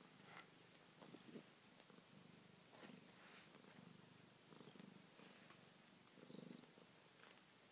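Red-point Siamese-type cat purring softly, in a low rumble that swells and fades about once a second with its breathing, with a few soft ticks.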